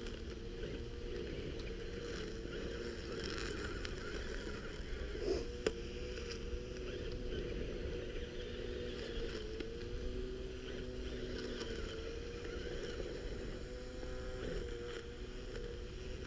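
Motor of an RC crawler's home-made weed-cutter blade running steadily, a whine whose pitch wavers slightly as the blade chops through vegetation, with one sharp tick about five and a half seconds in.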